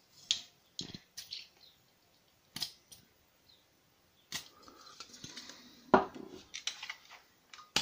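Clicks and knocks of an aerosol gas can being fitted to the magazine in a prop pistol's grip, with a soft hiss of gas for about a second and a half as it is refilled, then one sharp knock as the can is set down on the desk, followed by a few small clicks.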